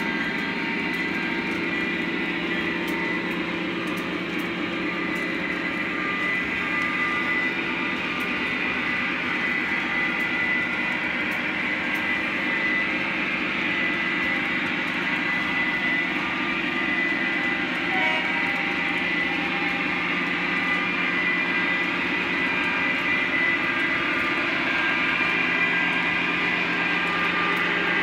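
Lionel O-gauge model freight train rolling steadily along three-rail track: a continuous rumble of wheels with a steady hum.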